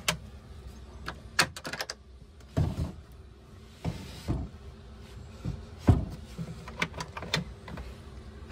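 Hand-worked metal latch bolts and the slide-out toilet base on their wooden cabinet, giving a run of sharp clicks and knocks with two heavier thumps and a brief sliding scrape in the middle.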